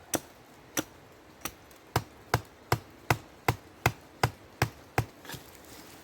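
About a dozen sharp chopping blows into a wooden pole. They are spaced out at first, then come at a steady two or three a second, and stop a little after five seconds in.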